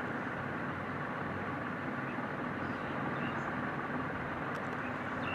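Steady background rumble and hiss with a couple of faint light taps about four and a half seconds in.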